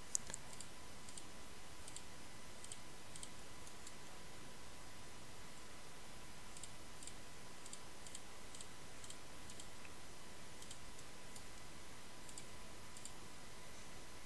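Computer mouse buttons clicking: about a dozen and a half short, sharp clicks, each heard as a quick press-and-release double tick, scattered irregularly with a pause around the middle, over a faint steady hiss.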